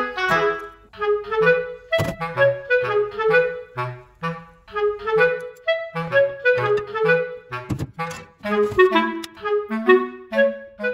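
Background music: a woodwind melody of short, separate notes over a bass line.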